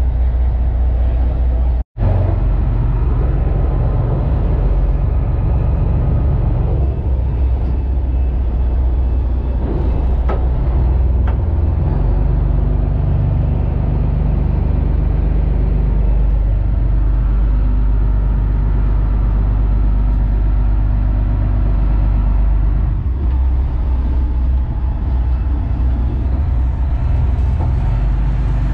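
Detroit Diesel Series 60 marine diesel running steadily: a low, even rumble heard from inside the boat's cabin. The sound drops out for an instant about two seconds in.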